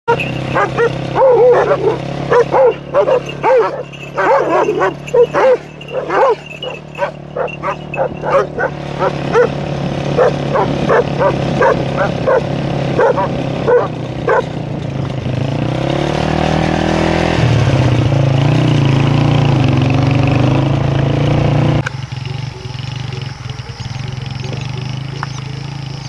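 A dog barking loudly and repeatedly, several barks a second, for about the first half, then falling silent. After that a steady low drone takes over, rising in pitch once and then holding.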